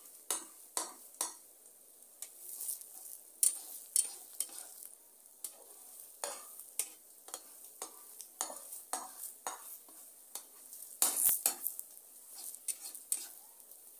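Egg-and-milk omelette frying with a steady sizzle in a non-stick pan. A slotted metal spatula pushes and scrapes it against the pan in short, irregular strokes, with the loudest cluster of scrapes about eleven seconds in.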